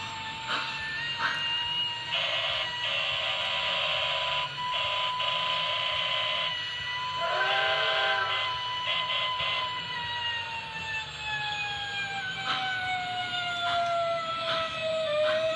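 Model train's sound module playing a fire siren that slowly winds up and down in pitch throughout. Repeated short horn blasts sound from about two to six seconds in, and a lower chord-like whistle blows briefly about seven seconds in.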